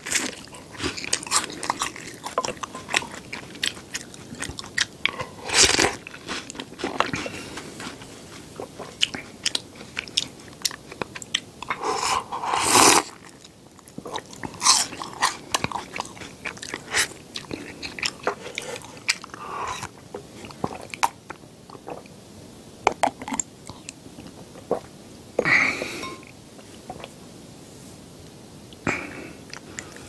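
Close-miked eating sounds: biting and chewing milk-soaked snack sticks, with irregular crunches and clicks and a few louder bursts around 6 s, 13 s and 25 s.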